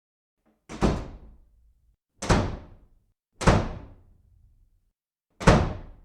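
Four loud, heavy impacts at uneven intervals, each one sudden and dying away within about half a second.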